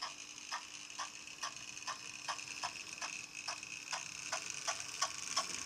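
Hornby B12 model steam locomotive running smoothly on the track: a steady high whine from its simple motor, with a regular ticking of about two clicks a second from the tender's mechanical chuff-sound device.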